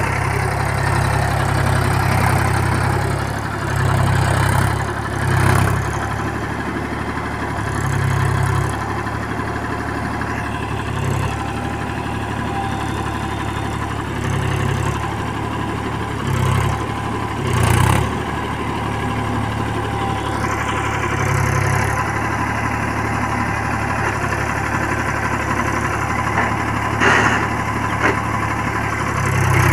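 Mahindra tractor's diesel engine running steadily under load as it churns on iron cage wheels through paddy-field mud, its note swelling briefly every few seconds.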